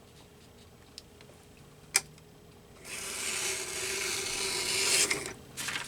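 Paper trimmer cutting a strip of magazine paper: a sharp click, then about two and a half seconds of scraping as the blade is drawn through the paper, growing louder before it stops, with a few small clicks near the end.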